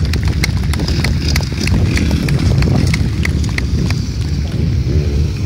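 Hand clapping, sharp claps about three a second, over a heavy low rumble from wind on the microphone and motorcycle and quad engines.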